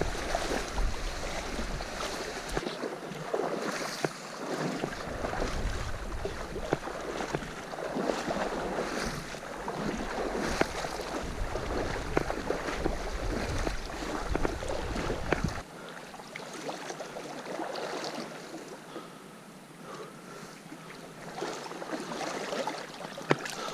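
Flowing river water under wind buffeting the microphone, with rustling and scuffing of movement along the bank. The low wind rumble drops away about two-thirds of the way through, leaving the water and rustling quieter.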